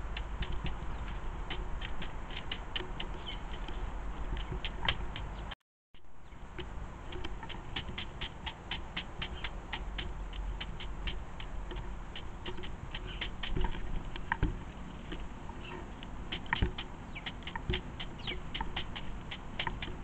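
A pigeon's beak pecking seed on a wooden bird-table tray: rapid, irregular taps, with a few louder knocks in the second half. The sound cuts out briefly about six seconds in.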